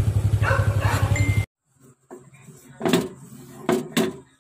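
A small engine idling with a fast, even pulse, cut off abruptly about a second and a half in. It is followed by three short, sharp noises, the last two close together near the end.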